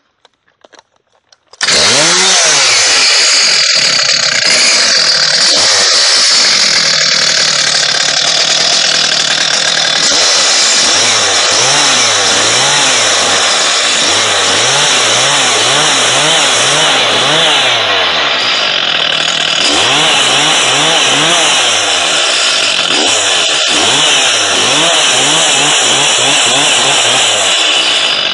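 Chainsaw cutting a notch into a squared wooden roof beam. The saw comes in suddenly about a second and a half in and then runs loud and continuously, its engine note rising and falling as the cut is worked.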